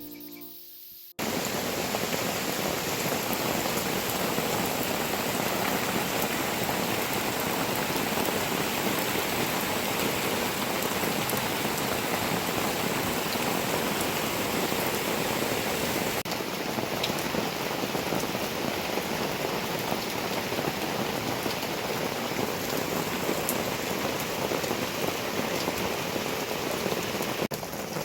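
Steady rainfall, a dense, even patter with an occasional sharper drop, starting abruptly about a second in.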